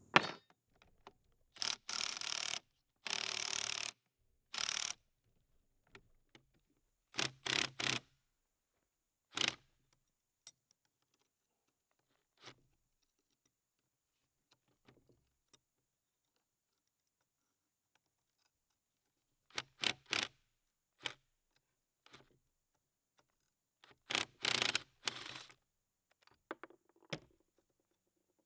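Adjustable wrench working nuts on the rusty steel gear housing of an old Manley mechanical floor jack: short metallic clinks and scrapes in scattered clusters, with quiet stretches between.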